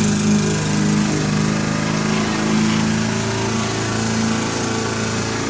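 A small engine running steadily with a constant droning hum.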